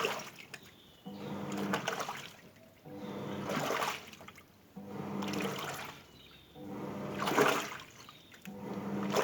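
Toshiba washing machine agitating a load: the motor turns the wash tub in regular pulses about every two seconds, each a hum of about a second with water sloshing and churning, then a short pause before the next stroke.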